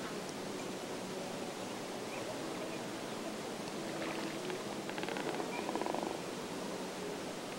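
Neotropic cormorants croaking in rapid pulsed rattles, a short call about four seconds in and a longer, louder one from about five to six seconds in, over a steady background hiss.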